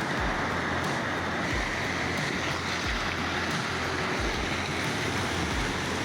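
Steady rushing water noise, with gusts of wind buffeting the microphone.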